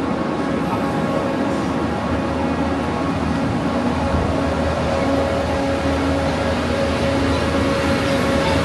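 Fog cannon truck running: its engine and big misting fan make a loud, steady drone with a low hum in it, growing slightly louder toward the end.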